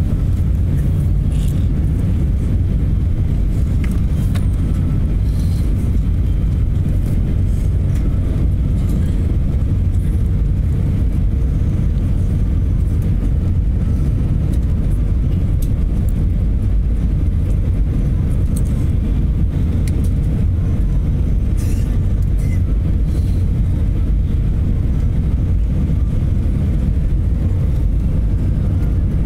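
Steady low rumble of jet engines and rushing air inside an Airbus A320's cabin during the descent to landing, with a faint steady hum under it.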